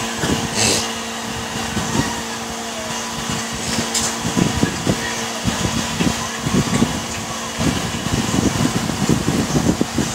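A steady mechanical hum with a constant low tone, under many irregular soft knocks and bumps.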